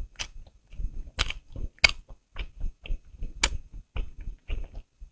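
A person chewing and eating with the mouth close to the microphone: irregular wet mouth sounds with about four sharp, crisp smacks or crunchy bites.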